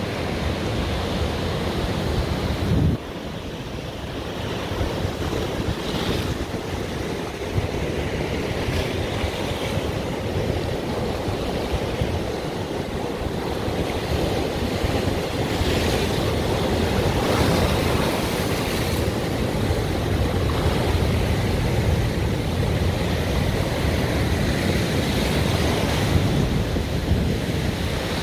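Rough ocean surf breaking and washing over rocks in a steady roar, with wind buffeting the microphone; the level drops suddenly about three seconds in.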